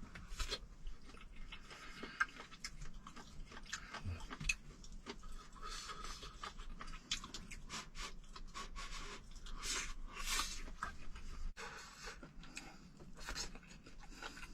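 Faint eating sounds from a person eating claypot rice: chewing with scattered small clicks and scrapes.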